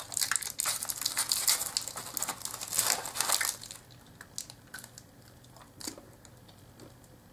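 Clear plastic wrapper of a chocolate bar crinkling as it is peeled open by hand, for nearly four seconds, then much quieter.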